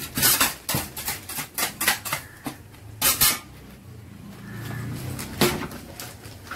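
Repeated sharp metal knocks and scrapes of a flat metal scraper against the worktable, with a longer scrape about three seconds in and a single loud knock near the end, as a slab of pulled sugar candy is worked and folded.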